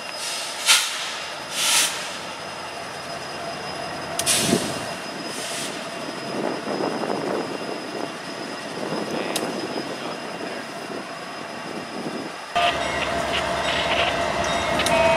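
Diesel freight locomotives idling, with several short hisses in the first half. About three-quarters of the way through the sound jumps louder and a steady horn-like tone builds near the end as the BNSF GE units begin to move off.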